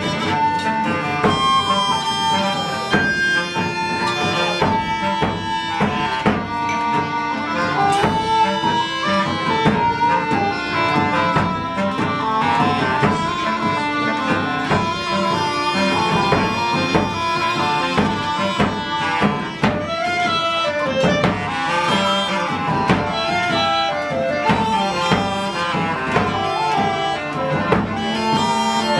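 Live woodwind ensemble playing a folk-style tune, several reed instruments together in melody and harmony over steady drum percussion.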